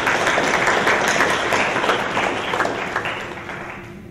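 Audience applauding: a dense patter of many hands clapping that dies away about three and a half seconds in.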